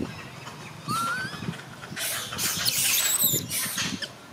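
Macaques squealing: a short rising squeal about a second in, then louder high-pitched screeching for about a second and a half.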